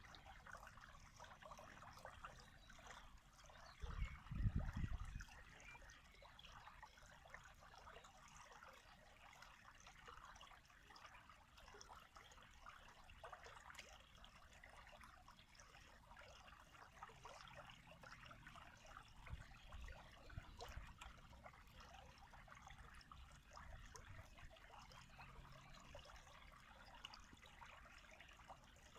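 Running water trickling faintly and steadily. A brief low rumble about four seconds in is louder than the water.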